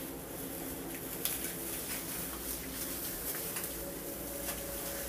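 Faint squishing and crackling of rubber-gloved hands working texturizer cream through short, wet hair, over a steady hum.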